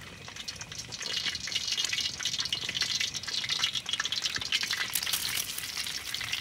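Eggs frying in a shallow steel pan over a camping gas stove, a steady sizzle full of small crackles and pops that grows louder about a second in.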